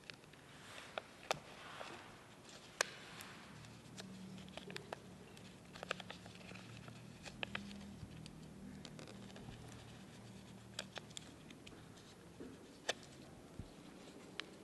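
Quiet close handling sounds: a thin Mylar plastic sheet crinkling and giving small scattered clicks as fingers work it under the enamelled copper windings of a Tesla coil. A faint low hum sits underneath for several seconds in the middle.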